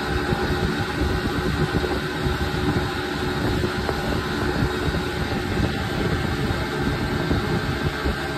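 Small aluminum jon boat underway: its motor running steadily, with water rushing along the hull and wind buffeting the microphone.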